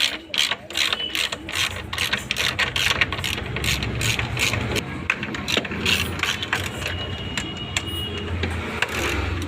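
Bolts being undone on the gearbox (mechanism) mounting of a fully automatic washing machine, with a hand tool giving rapid, repeated clicking.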